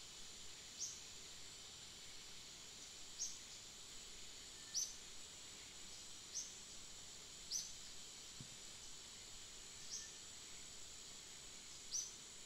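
Faint steady high drone of insects in the undergrowth, cut by a short high chirp every second or two, seven in all.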